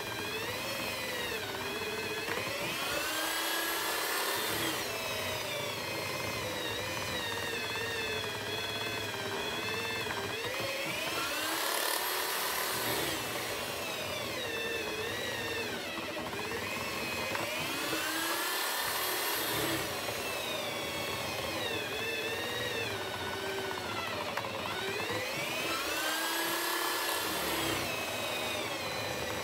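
Electric drill mounted in a homemade wooden mortising jig, running continuously while boring a mortise into a timber beam. Its motor whine rises and falls in pitch in slow swells, roughly every seven or eight seconds, as the bit is worked into the wood.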